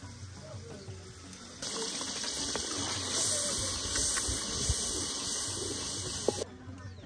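Stock being poured into the pot of pepper sauce: a steady hiss of pouring liquid that starts suddenly about a second and a half in and stops suddenly about five seconds later.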